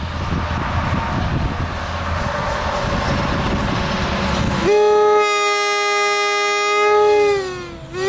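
WABCO AA2 two-bell air horn being blown on compressed air. For over four seconds there is only a loud rush of air with no tone, then the horn catches and sounds a steady chord, sagging and falling in pitch as it dies away near the end.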